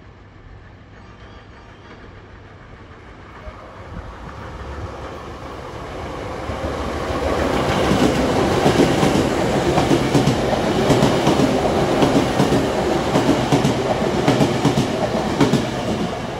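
A Hankyu 3300-series electric train passing through the station without stopping. It is heard coming closer from about four seconds in, then its wheels rumble and clack over the rail joints in quick regular clicks as the cars run past close by. It eases off slightly near the end.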